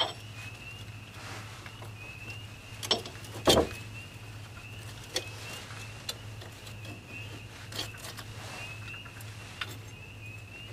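Scattered light metallic clicks and knocks as a new wheel stud is handled and pushed into the front wheel hub, with the stud not seating easily, over a steady low hum.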